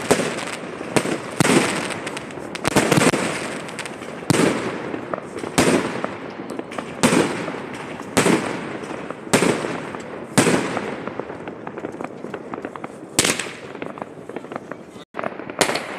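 Aerial fireworks bursting overhead: a sharp bang about every second, each followed by a fading crackle. The bangs thin out near the end.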